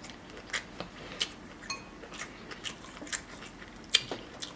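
Close-miked chewing of seafood boil food: wet mouth smacks and clicks, about two or three a second, with one sharper smack near the end.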